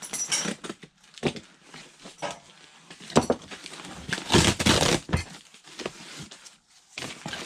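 Packing material crinkling and rustling as a box is unpacked by hand, in a series of short irregular scrapes and crackles with a longer, louder rustle about halfway through.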